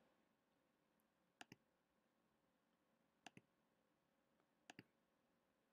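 Three faint pairs of computer mouse clicks, about a second and a half apart, over near silence.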